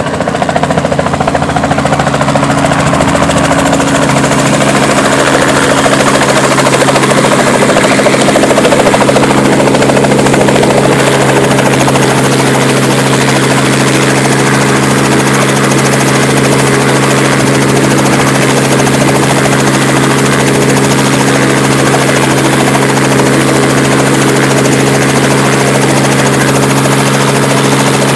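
Small helicopter running on the ground with its rotor turning: a steady engine and blade drone with several held low tones. It grows louder over the first second or two, then holds even.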